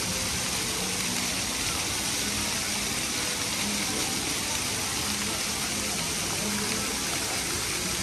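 Fountain water splashing in a steady, even rush.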